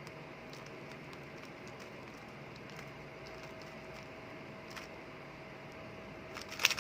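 Rubik's cube being turned through an OLL algorithm: faint, scattered plastic clicks of the layers turning, with a quick run of louder clicks near the end. A faint steady hum runs underneath.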